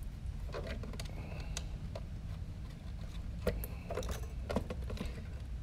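Scattered light clicks and rattles of plastic and metal as a battery is handled and fitted into a radio transmitter's battery compartment, over a low steady hum.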